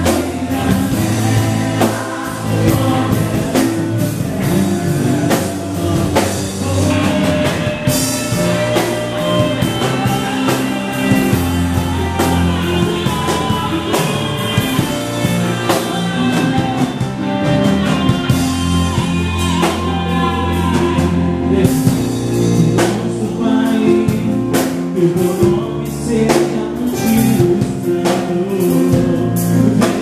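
Live gospel worship band performing: male and female vocalists singing together over drum kit and electric guitars.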